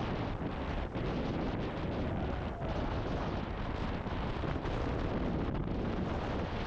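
Steady rushing noise of wind buffeting the microphone, heaviest in the low rumble.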